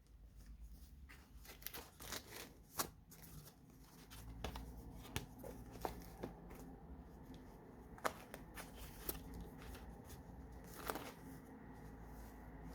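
Paper pages of a handmade junk journal being turned and handled: soft rustles and light taps, with a few sharper flicks, over a low hum that comes in about four seconds in.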